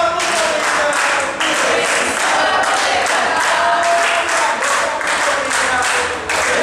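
Samba de umbigada: a group of voices singing over hand clapping and hand drums beating a quick, steady rhythm.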